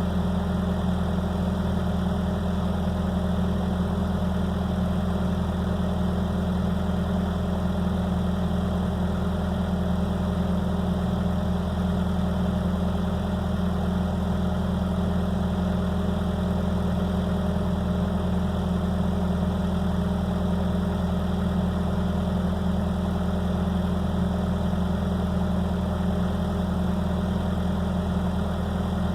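Skid steer engine running at a steady speed, an even low hum with no revving or changes.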